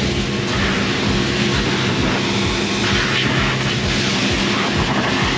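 Pressure washer running with a steady hum, its water jet hissing as it sprays a truck.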